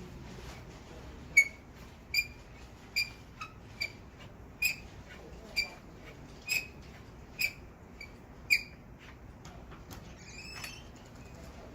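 A series of about ten sharp, ringing metallic ticks, evenly spaced a little under a second apart, followed near the end by a brief squeak, from hand work on the sander's metal parts.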